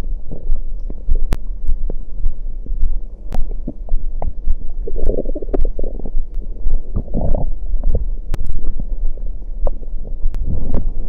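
Close-miked stomach gurgling after drinking cider: many small pops and clicks, with two louder gurgles in the middle, over a low steady hum.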